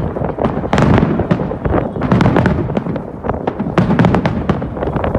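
Fireworks going off in quick succession: many sharp bangs and crackles, several a second, overlapping over a continuous rumble.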